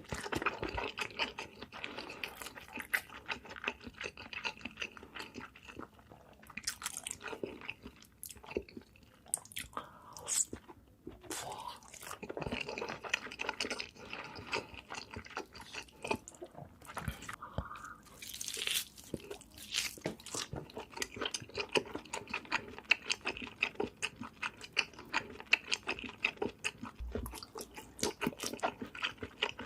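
Close-miked eating sounds: a person biting and chewing food, with crunches and many small mouth clicks and smacks, pausing briefly a few times.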